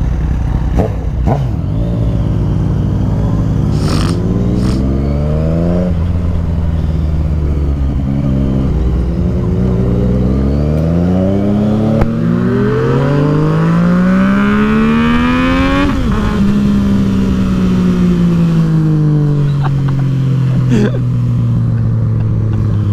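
Yamaha FZ-09's three-cylinder engine accelerating hard from a stop through the gears: the engine pitch climbs and drops back at each of about four upshifts, then settles into steady running with the revs slowly falling.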